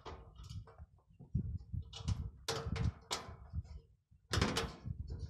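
Hand screwdriver driving a screw into a galvanized sheet-metal nesting box: irregular metallic scrapes and clicks, the sharpest about two and a half, three and four and a half seconds in, some with a brief ring from the metal panel.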